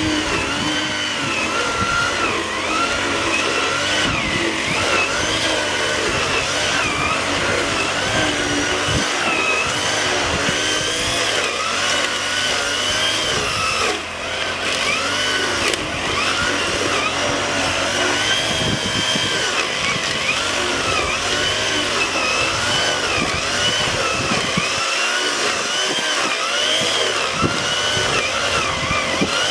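Brush cutter engine running under load as it drives a homemade weeding head through weeds in a flooded rice paddy. Its pitch rises and falls again and again.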